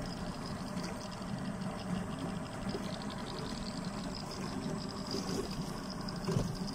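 River water splashing and dripping as a bamboo-framed scoop net and pole are worked in the shallows beside a wooden boat, over a steady low rumble.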